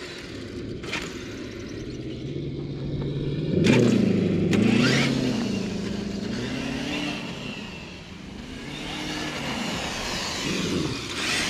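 Traxxas TRX-4 RC crawler's electric motor and geartrain whining as the truck drives, its pitch rising and falling with the throttle over two runs, with a sharp click about four seconds in. It is quiet on the stock battery, which the owner expects to get much louder on a 3S battery.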